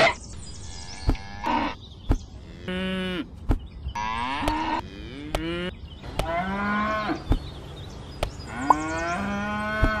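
Cattle mooing, about six calls in a row, some rising in pitch, with a few light clicking knocks in between.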